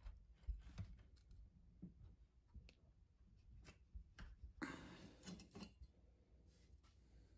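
Faint handling noises of a thin metal strip being bent by hand over a metal tube on a wooden workbench: scattered light clicks and knocks, with a brief scraping rustle a little under five seconds in as the strip is worked off the tube.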